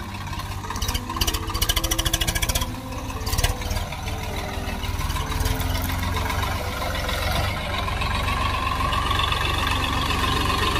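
Swaraj 742 XT tractor's three-cylinder diesel engine running under load as it pulls a heavily loaded trolley over rough ground, getting louder as it comes close. A run of clicks and rattles sounds between about one and three seconds in.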